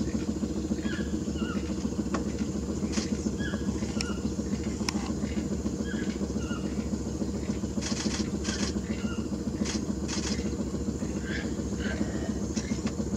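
Boat motor running steadily at low speed, with short high bird chirps and a few light clicks over it.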